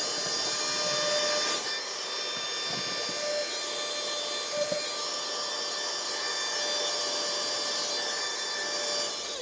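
Vacuum cleaner running steadily with a high motor whine as its nozzle is passed over static grass, lifting loose fibres and clumps that haven't stuck. The motor begins to wind down at the very end.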